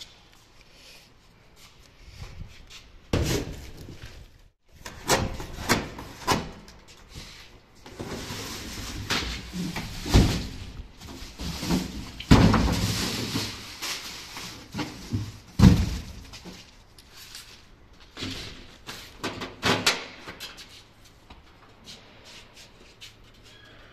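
Handling noise from a boxed split-type air conditioner outdoor unit being carried and set down: a string of knocks, bumps and thumps, with denser scraping and rustling of cardboard and plastic wrap in the middle.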